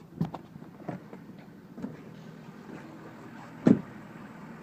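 A few light clicks and handling noises, then a pickup truck's door slamming shut with one loud thump near the end, over the truck's engine idling.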